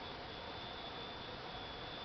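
Steady background hiss with a thin, steady high-pitched whine running through it.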